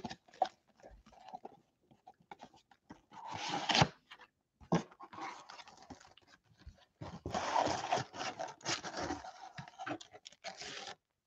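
Plastic shrink-wrap crinkling and tearing as it is pulled off a sealed trading-card box, with cardboard flaps and foil card packs being handled. The crinkling comes in spells, briefly about three seconds in and longest from about seven seconds on.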